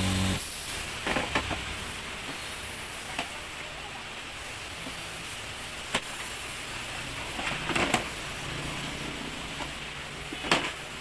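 Steady background hiss with a few scattered sharp clicks and knocks.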